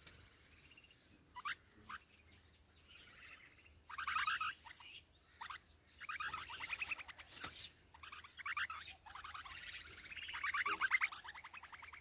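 Nestling birds calling: two short chirps, then three bursts of fast, rasping, rapidly repeated begging notes, the loudest bursts about four seconds in and again near eleven seconds.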